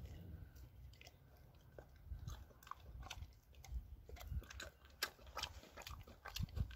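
Bernese mountain dog chewing a beef stick treat: a run of irregular, crisp crunching bites, coming thicker in the second half.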